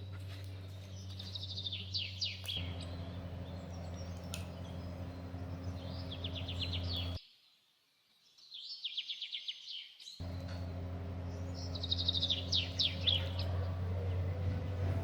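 A small songbird singing the same short, rapid trilled phrase four times, each a second or so long, over a steady low hum that drops out for a few seconds midway.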